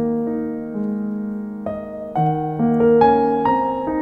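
Background piano music, a calm melody of notes struck one after another and left to ring.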